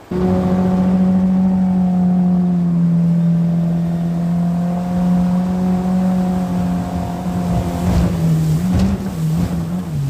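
Outboard jet motor on an aluminium jon boat running hard at a steady high pitch while powering up through shallow river rapids, over the rush of water. Near the end the engine pitch wavers and dips as the boat comes off the rapids.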